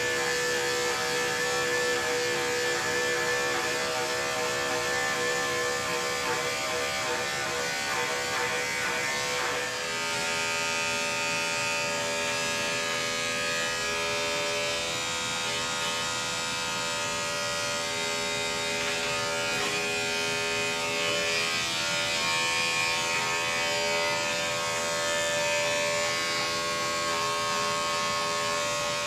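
Andis five-speed electric dog clippers running steadily as they cut through a curly coat. The hum changes in tone about ten seconds in.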